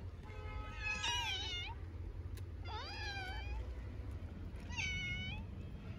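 A small, hungry tabby kitten meowing three times, high-pitched calls each under a second long, over a steady low background rumble.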